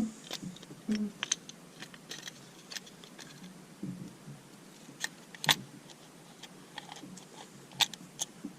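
Scattered clicks and light metallic knocks from small parts of a disassembled diesel injection pump being handled and set down, with the sharpest knocks about five and a half and nearly eight seconds in.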